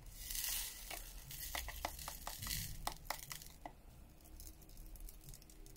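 Diamond-painting drills poured out of a 3D-printed tray's spout into a plastic tray, a quiet rattling hiss for about a second. A scatter of small clicks from stones and plastic trays follows.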